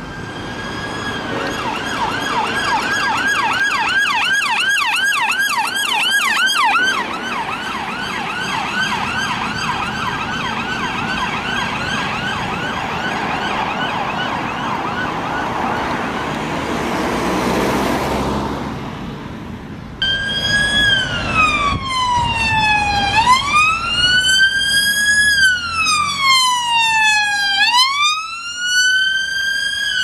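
UK ambulance-service emergency vehicle sirens. First a fast yelp sweeping up and down several times a second, loudest in the first few seconds and fading away. Then a slow wail that falls and rises again about every four to five seconds.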